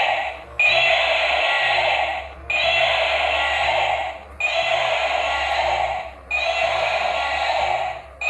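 A toy vehicle's electronic sound effect playing over and over in a loop, one burst of a little under two seconds after another with a short break between.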